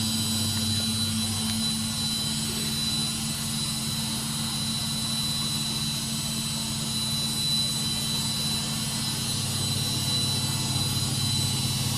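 Samsung washing machine on its final spin, the drum turning at high speed (about 1200 rpm) to wring water from the clothes: a steady low hum with a thin, high, steady whine over it.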